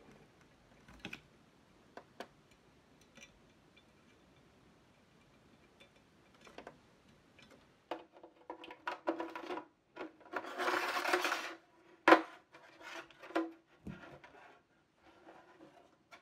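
A TRS-80 monitor's black plastic rear housing being handled and fitted over the metal chassis: a few faint clicks at first, then from about halfway on scraping and rubbing, a rasping slide of about a second, a sharp knock, several clicks and a low thump.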